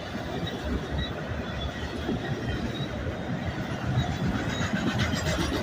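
Freight train of autorack cars rolling past at close range, a steady rumble and rail noise.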